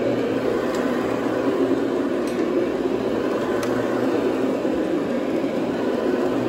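CRB (cylindrical rotary brush) carpet machine running steadily, its brushes agitating encapsulation cleaner into the carpet: an even, unbroken machine hum with a low drone underneath.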